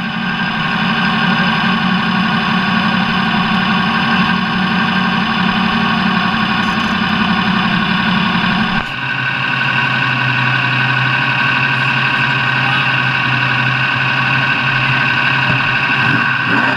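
Engine running at a steady speed. About nine seconds in, the sound breaks off abruptly and resumes at a lower steady note.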